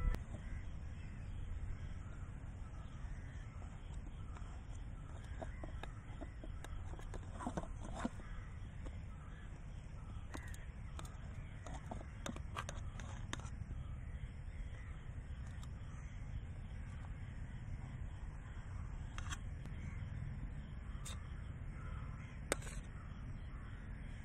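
A knife cutting through a bread omelette, clicking sharply against a steel plate now and then. Birds call in the background over a steady low outdoor rumble.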